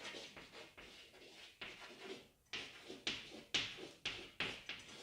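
Handwriting: a run of short scratchy pen strokes, several a second and irregular, as words are written out on a list.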